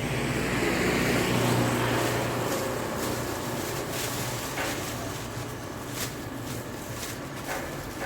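A vehicle engine humming steadily, loudest in the first couple of seconds and fading away over the next few, with a few faint clicks afterwards.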